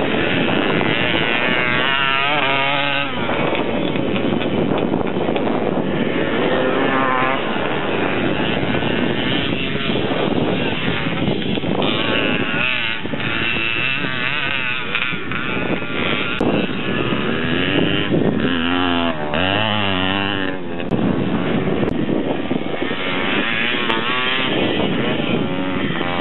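Vintage air-cooled motocross motorcycles racing past one after another, their engines revving up and down, with repeated rising pitch as riders accelerate.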